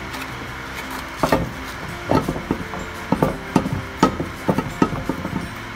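A small truck's steel wheel clunking against the hub and wheel studs as it is rocked and pushed onto them by hand: about ten irregular knocks, starting about a second in.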